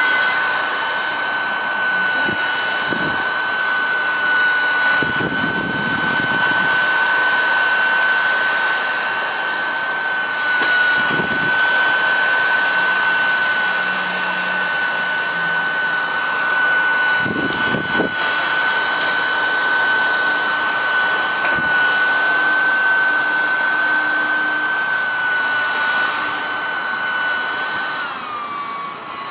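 Mini USB keyboard vacuum cleaner's small motor running with a steady high whine over rushing air, with a few brief bumps as it is handled. Near the end the whine drops in pitch.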